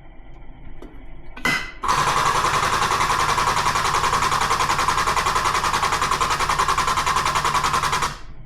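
Air-over-hydraulic pump running on a shop hydraulic press, a loud rapid pulsing chatter that lasts about six seconds and cuts off near the end, after a brief burst just before it starts.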